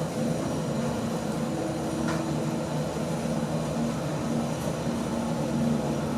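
Otis 2000 lift car travelling upward at 2 metres a second, heard from inside the car: a steady hum of the ride with a low drone.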